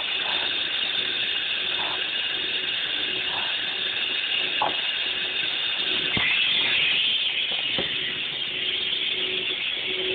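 Steady hiss of machinery in an industrial hall, with a faint low hum underneath and a few light clicks scattered through.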